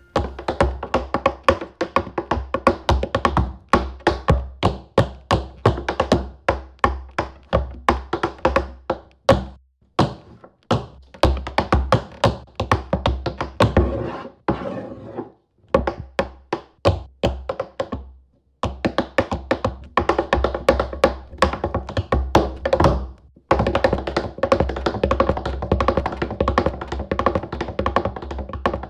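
Tap shoes striking a hard floor in fast rhythmic runs, a solo tap-dance routine broken by several short pauses.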